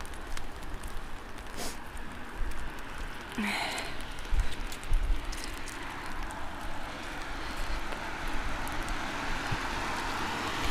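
Steady rain falling outdoors, a continuous hiss, with a brief louder swish about three and a half seconds in.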